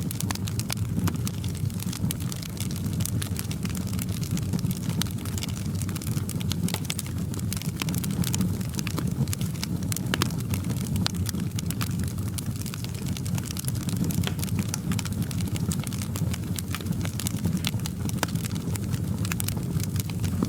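Fireplace fire crackling: a dense run of sharp pops and snaps over a steady low rumble.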